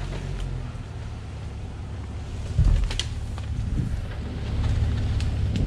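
Jeep engine running at low revs as it crawls along a rough trail, a steady low rumble. There is a louder knock a little over two and a half seconds in and a sharp click about half a second later.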